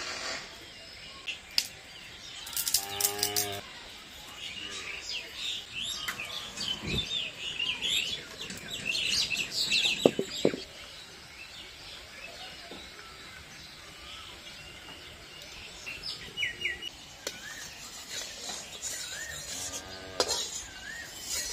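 Small birds chirping and twittering on and off, with a voice briefly in the background twice. Two sharp knocks about ten seconds in as a metal wok is set on the clay stove.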